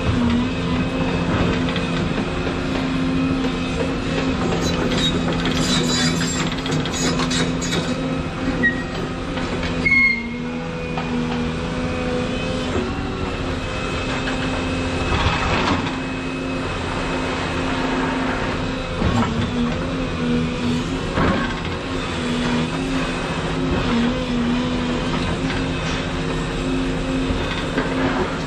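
Volvo 235EL excavator's diesel engine running steadily under hydraulic load, with scraping and clatter from the tiltrotator bucket as it levels the ground. A sharp knock comes about ten seconds in.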